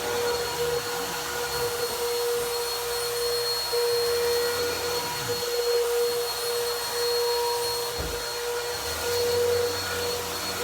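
Vacuum cleaner running steadily on carpet, its motor holding a constant whine over the rush of airflow. There are a few brief low sweeps and a low thump about eight seconds in.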